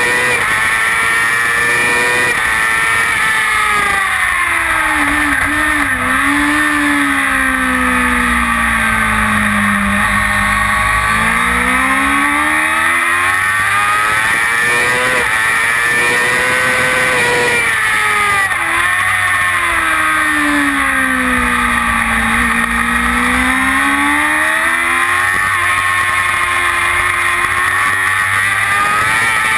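Kawasaki ZX-6R inline-four sport-bike engine at high revs, heard from an onboard camera on the bike at speed. The engine note drops and climbs again twice as the rider rolls off and opens the throttle through corners.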